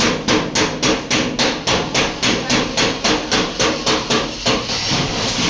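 Hammer beating out a dented car door panel in steady, rapid blows, about four a second. The blows stop near the end and a steady rasping noise takes over.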